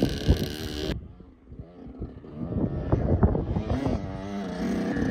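Dirt bike engine running. The sound drops off abruptly about a second in, then the engine is heard again, idling with a steady low tone over the second half.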